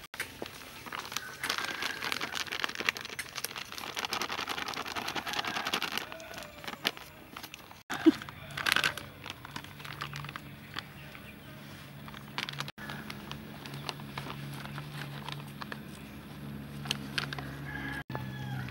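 Hands mixing raw chicken wings with chili paste in a metal bowl: wet, sticky handling noises with many small crackles for the first six seconds. A sharp knock about eight seconds in, and a low steady hum underneath after that.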